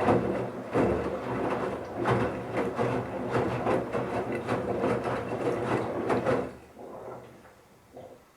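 Bauknecht Super Eco 7615 washing machine turning its drum in the wash phase: a steady motor hum with irregular thuds and sloshing as the wet towels tumble. The drum stops about six and a half seconds in, leaving a couple of faint knocks.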